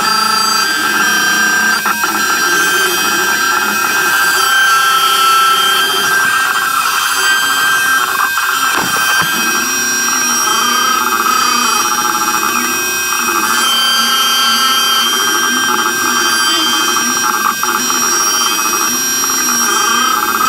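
X-Carve CNC router cutting lettering into red oak with a 60-degree V-bit at a slow feed. The spindle runs with a steady high whine, and underneath it the axis stepper motors hum in tones that waver up and down as the machine moves along the toolpath.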